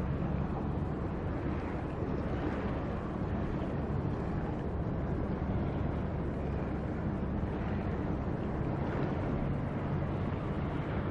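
Steady low drone of a vessel's engine at sea, with wind buffeting the microphone and the wash of open water.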